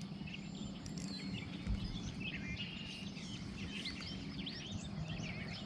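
Many short bird chirps and calls scattered throughout, over a steady low background noise.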